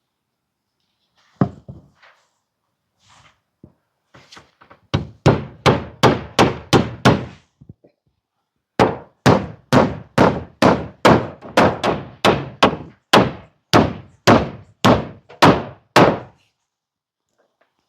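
Hammer driving nails through a wooden batten into board siding: a single blow, a few light taps to start the nail, then two runs of steady blows, about three a second.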